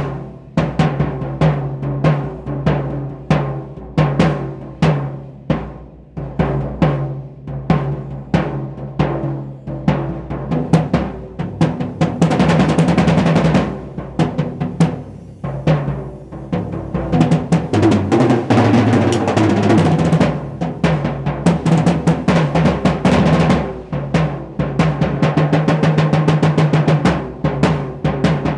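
Acoustic drum kit played as a fast solo: rapid fills around the snare and toms over the bass drum, with dense, rolling runs of strokes in the middle and later on.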